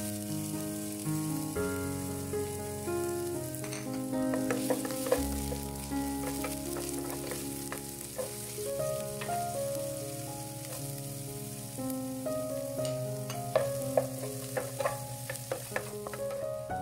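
Diced onion sizzling in hot olive oil in a frying pan, with a wooden spatula clicking and scraping against the pan as it is stirred. Soft background music with steady notes plays underneath.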